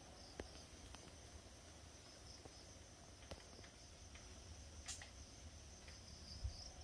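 Night insects, crickets among them, chirping faintly and steadily, with a few faint clicks and a short low thump near the end.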